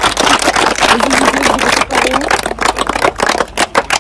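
A small crowd applauding: many quick, overlapping hand claps, with a voice or two in the mix.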